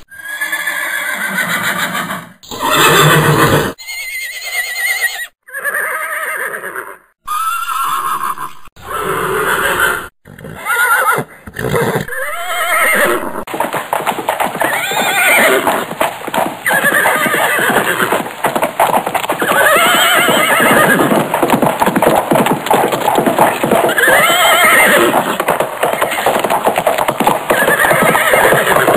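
Horse whinnying again and again. Over the first dozen seconds it comes in short, chopped-up pieces, then as separate calls every few seconds over a steady background hiss.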